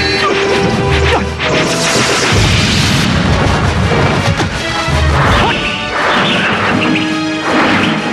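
Martial-arts fight sound effects: blade clashes and repeated heavy hits and crashes over dramatic background music.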